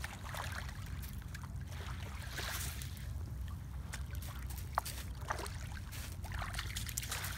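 Sea water sloshing and splashing over a steady low rumble, with a brief sharp squeak a little more than halfway through.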